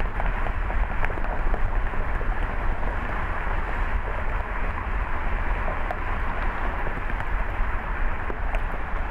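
Car driving along a paved road: a steady rush of tyre and road noise over a deep, constant low rumble.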